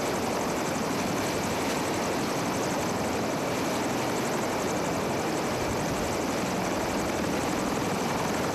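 Navy helicopter running on the ground during unloading, its engines and rotor making a steady, even rush of noise.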